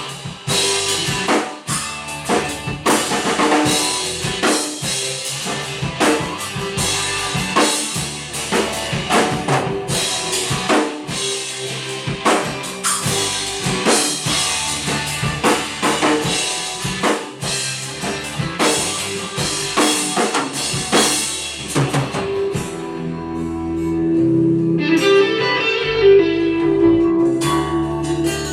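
Rock band playing an instrumental passage on drum kit and guitar with no singing. About three-quarters of the way through the drums stop and held guitar notes ring on.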